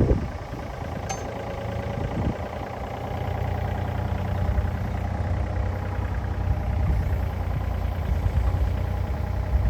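Yanmar ViO35-6A mini excavator's three-cylinder diesel engine running steadily, with a faint click about a second in.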